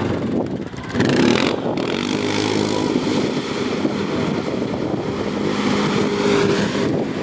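ATV engine running and revving under load. The engine eases off briefly just before a second in, then runs on steadily.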